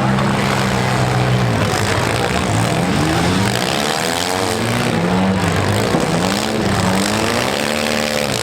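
Engines of several compact demolition derby cars revving up and down over and over, their pitch rising and falling about once a second as the cars accelerate and back off.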